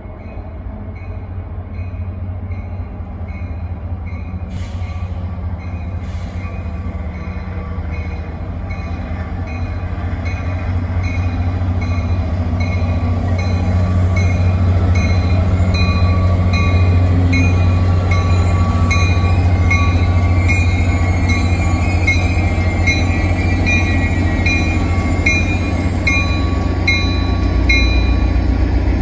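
Caltrain diesel locomotive and its passenger cars rumbling past on the rails, growing louder as the train draws in over the first half, then holding steady as the cars roll by. A grade-crossing warning bell dings about twice a second throughout.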